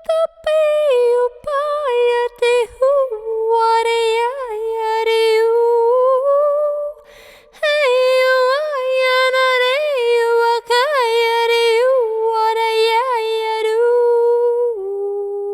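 A woman's unaccompanied voice singing wordless sound-healing tones. It holds long notes that slide and waver between pitches, breaks off briefly about seven seconds in, and steps down to a lower note near the end.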